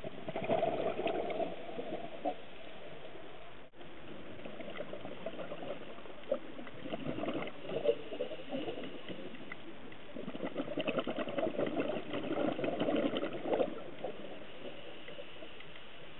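A scuba diver's exhaled bubbles from the regulator, heard underwater: three long bubbling bursts a few seconds apart, like breaths, over a steady hiss.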